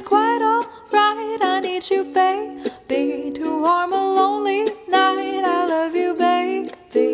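Background music: ukulele strumming chords under a gliding lead melody, with no lyrics sung.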